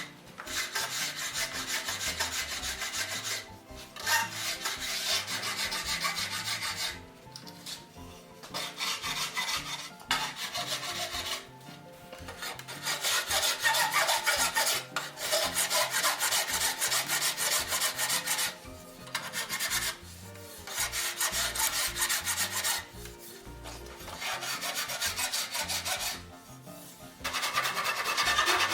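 A hand rasp filing wood in spells of rapid scraping strokes, each lasting a few seconds, with short pauses between them.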